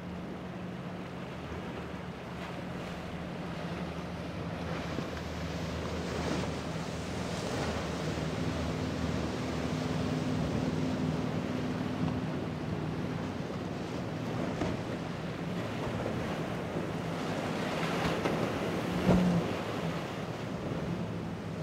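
Quad Mercury 450 Racing outboards, supercharged V8s, on an MTI V-42 running through rough water: a steady low engine drone under the wash of waves and wind on the microphone. There is one sharp knock near the end.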